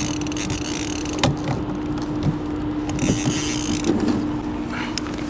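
Steady motor hum from the trolling kayak, with a few light knocks and some hiss.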